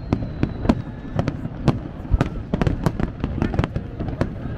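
Fireworks going off in a rapid, irregular run of sharp bangs and crackles over a low rumble.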